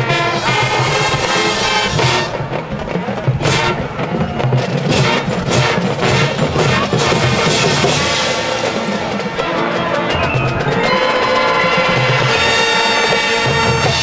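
High school marching band playing: brass over the drum line and pit percussion, with many sharp percussion hits through the first half, building to a long held brass chord near the end.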